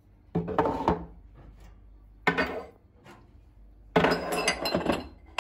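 Storage jars being handled and set down in a kitchen cupboard, knocking and clinking against the shelf and each other in three bursts; the longest, about four seconds in, has a ringing clink.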